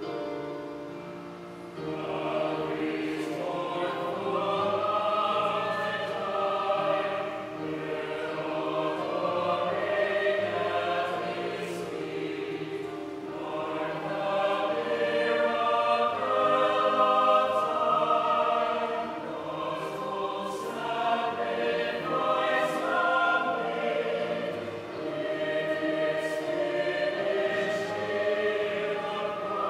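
Choir singing a slow hymn, the voices coming in louder about two seconds in and then swelling and easing phrase by phrase.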